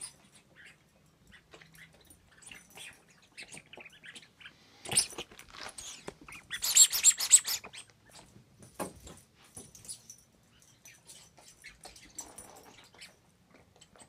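Small dog playing fetch with a toy on carpet: scattered light clicks and scuffles, with louder noisy bursts about five and seven seconds in.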